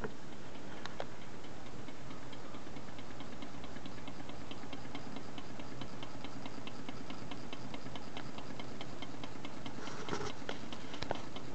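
Homemade tin-can Stirling engine running steadily, with an even, fast clicking of about four clicks a second from its crank. The builder thinks the click comes from a little too much play where the conrod joins the crank pin.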